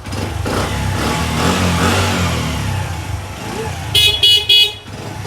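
Motorcycle engine running and revved, then three short beeps of the motorcycle's horn about four seconds in: the electrics being tested after the handlebar lock and its wiring were refitted.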